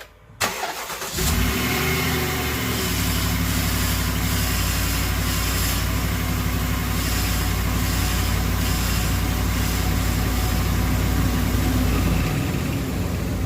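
Dodge Ram 1500 pickup's engine starting about a second in and running steadily, heard from underneath the truck. The low engine note drops away near the end.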